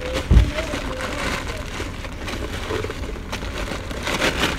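Plastic packaging of small hair clips being handled, with a few faint crinkles and one dull thump about a third of a second in, over a low steady hum.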